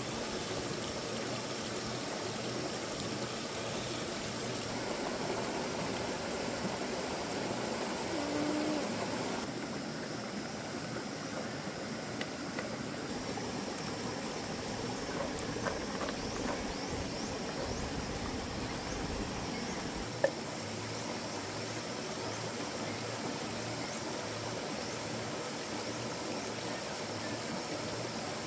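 Shallow rocky stream running steadily over stones, with one sharp tap about twenty seconds in.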